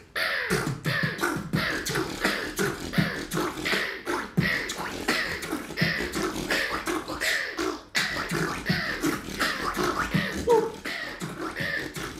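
Human beatboxing: a fast, dense run of mouth-made kick, snare and click sounds with short pitched vocal sounds between them, breaking off briefly about eight seconds in.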